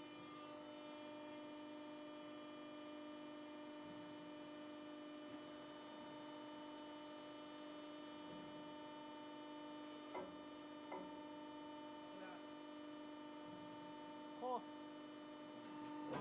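Steady hum with several even overtones from the idling CNC hydraulic guillotine shear's motor and hydraulic pump. A few short rising chirps come in about ten and eleven seconds in and once more, louder, near the end.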